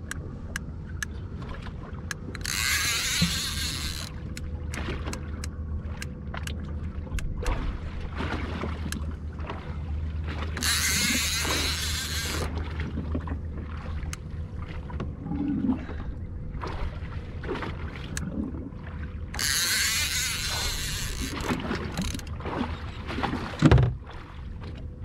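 Sounds aboard a small fishing boat on the water: a low steady hum under scattered light clicks and knocks, with three spells of hissing about eight seconds apart and a single thump near the end.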